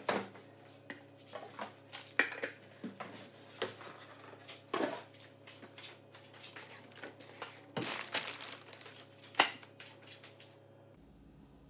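Groceries being handled and set down on a wooden tabletop: irregular knocks and taps of cans and plastic containers, with bits of packaging crinkle. A faint steady hum runs underneath and stops near the end.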